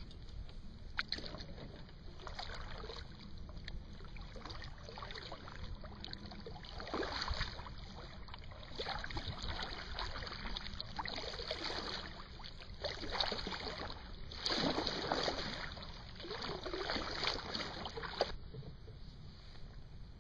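Kayak paddle strokes splashing in the water, one every second or two, over a steady low rumble.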